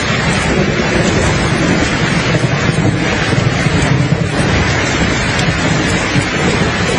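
Steady rain with a low rumble of thunder.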